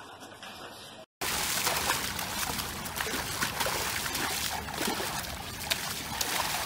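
Shallow water splashing and sloshing as a large dog wades and paddles through it at the water's edge, starting about a second in with many quick splashes.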